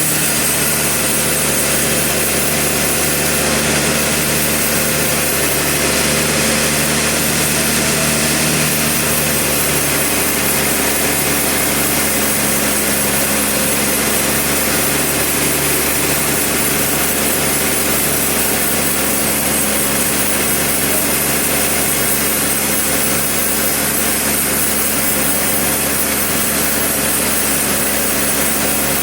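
Sawmill cutting through a large trembesi log, the saw and the mill's engine running steadily and loudly, with a slight change in pitch about ten seconds in.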